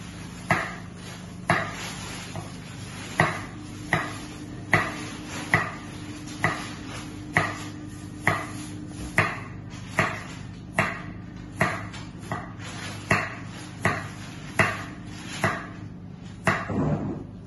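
Kitchen knife slicing a carrot into rounds on a wooden cutting board: a steady series of crisp knife strikes on the board, a little more than one a second.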